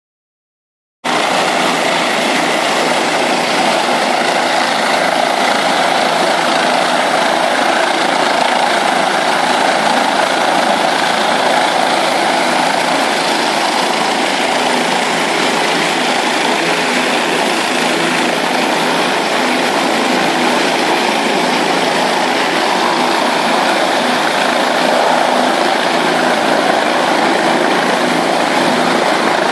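Bell 407 and Bell 222 helicopters' turboshaft engines and rotors running on the ground, a steady loud drone that cuts in suddenly about a second in.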